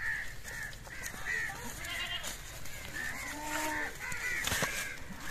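Farmyard animal calls: many short, repeated fowl calls, with one longer, lower animal call about three and a half seconds in. A few clicks and rustles, the loudest about four and a half seconds in.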